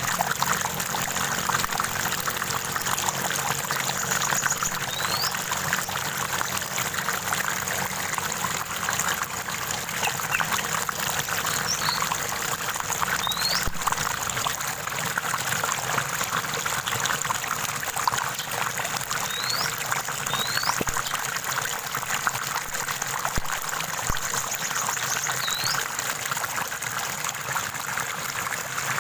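Stream water trickling and splashing steadily over stones, with a bird giving a few short, high rising chirps now and then.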